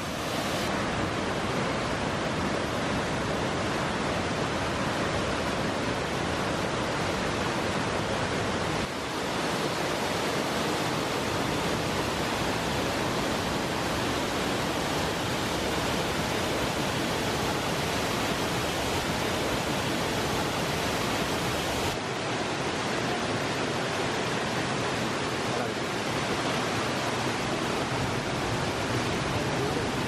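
Waterfall cascading over rock into a pool: a steady, even rush of falling water, its tone shifting slightly about 9 and 22 seconds in.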